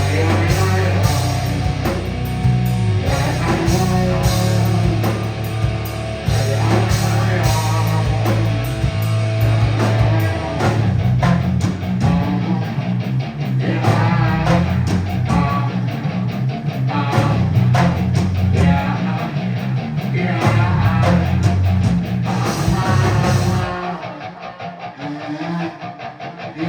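Rock band playing a heavy song live on stage: electric guitar, bass and drum kit, stopping abruptly near the end.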